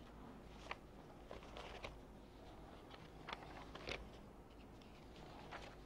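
Faint rustling and crackling of paper sheets being handled, with several brief sharper crackles spread through, over a low steady room hum.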